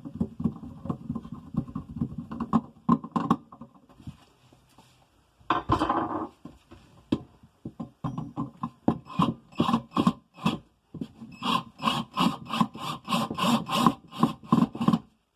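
Quick repeated scraping and rubbing strokes, settling into an even rhythm of about three a second in the second half, with a short denser rustle near the middle.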